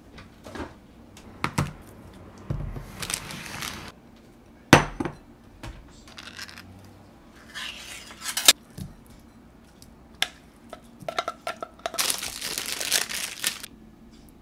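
Food-prep handling noises: clicks and knocks, short rustling stretches, and a glass mixing bowl clinking, with a spoon tapping and scraping against the glass as canned tuna goes into the bowl.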